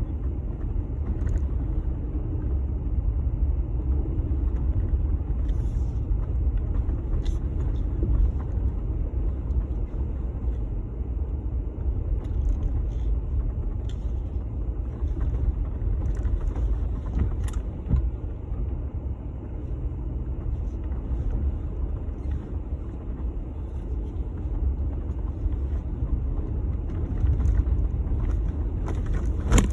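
Jeep Gladiator driving: a steady low rumble of engine and tyres, with a few faint clicks scattered through it.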